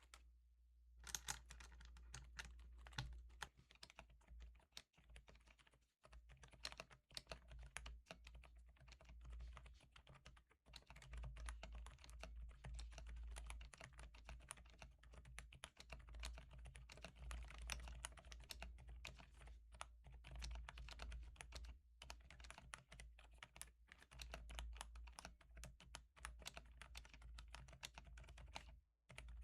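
Quiet, continuous typing on an Attack Shark X85 Pro mechanical keyboard fitted with silent linear and silent tactile switches under PBT keycaps: dense, soft, muffled keystrokes, with a low steady hum underneath.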